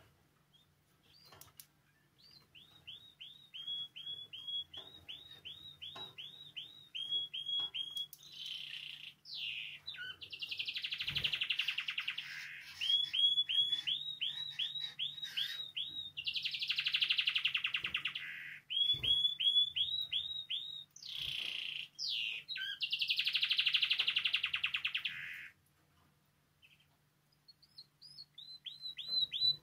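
Spanish timbrado canary singing: runs of quick, evenly repeated short notes alternating with louder, dense buzzing trills, with a short pause near the end before the song resumes.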